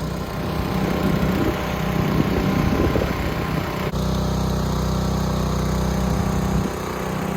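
Small engine running steadily at an even speed, driving the pump that drains the fish pond.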